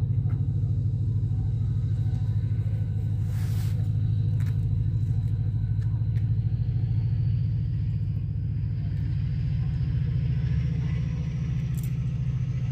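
Class 68 diesel-electric locomotive, with its Caterpillar V16 engine, pulling a train away from the platform. The engine gives a steady deep rumble, and a faint whine rises in pitch from about halfway as it gathers speed.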